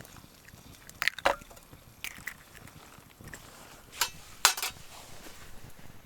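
Several sharp knocks and clinks, spread out and irregular, the loudest about four and a half seconds in.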